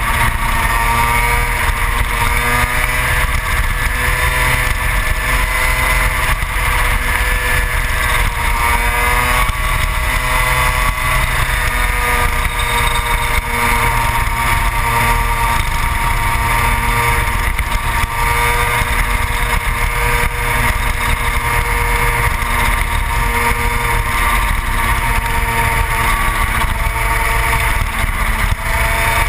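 Yamaha TZ250 two-stroke racing engine of a superkart at race speed, heard on board, its pitch drifting gently up and down with throttle and revs.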